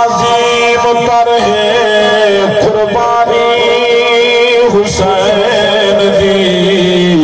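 A man's voice singing a Saraiki devotional verse in long, melismatic held notes with wavering pitch, several drawn-out phrases in a row, sung into a microphone.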